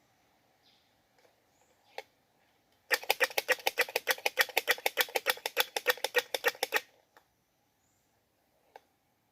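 Squirrel's mating call: a rapid run of sharp clicks, about ten a second, lasting nearly four seconds, with a few single clicks before and after.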